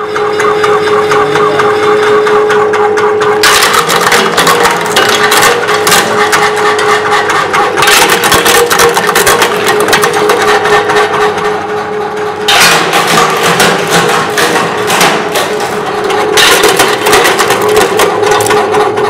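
Electric walnut-cracking machine running: a steady motor hum under a dense clatter of walnuts being cracked and shell pieces rattling through it. The clatter grows much thicker about three and a half seconds in.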